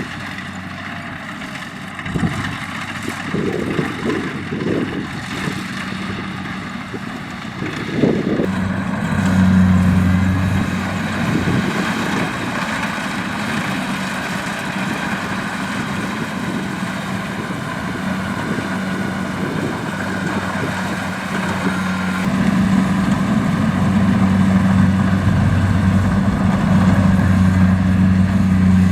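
Kubota DC-70 combine harvester's diesel engine running steadily under load, with uneven low rumbles in the first several seconds. It grows louder about eight seconds in and again a little past two-thirds of the way through.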